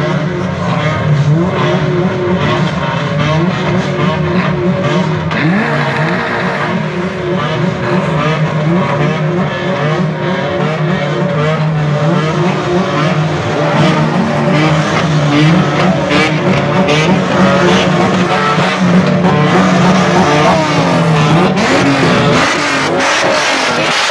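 Many race car engines, Renault Twingo Cup cars among them, revving together at once. Their overlapping notes keep rising and falling, and together they make a collective revving salute.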